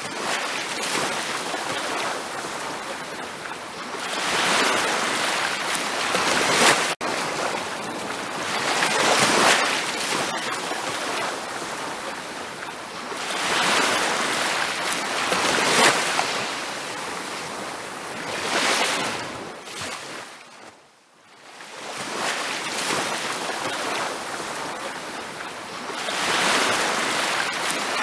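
Ocean waves breaking and washing up a beach, the surf swelling and easing every few seconds. It fades almost to nothing for a moment about three-quarters of the way through, then builds again.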